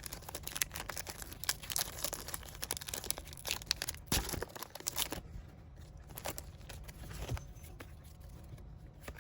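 Foil wrapper of a Pokémon card booster pack crinkling and tearing as it is opened, a dense run of crackles for about the first five seconds, then sparser clicks and rustles.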